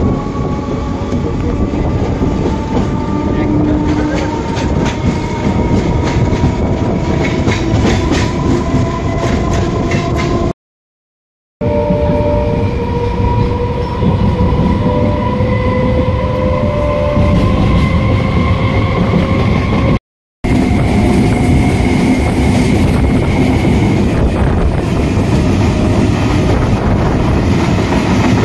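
Suburban electric local train running at speed, heard from inside the carriage at an open window: a loud, steady rumble and clatter of wheels on the rails, with a whine that rises slowly in pitch. The sound cuts out twice, for about a second near the middle and briefly about two-thirds of the way through.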